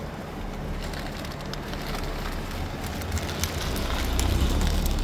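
Outdoor street noise: a low rumble that swells and grows louder over the second half, with a few faint clicks on top.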